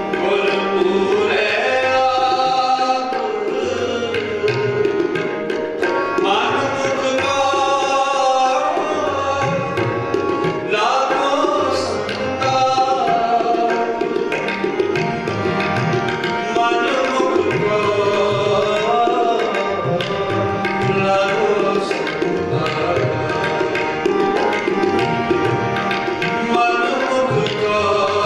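Sikh kirtan: a ragi sings a shabad over sustained harmonium chords, with a tabla playing a steady run of strokes underneath.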